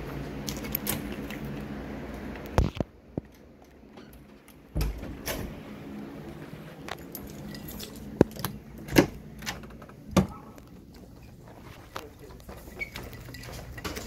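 Door and handling noises: a knock about two and a half seconds in, after which the steady background drops away, then a thump and a series of sharp clicks and rattles.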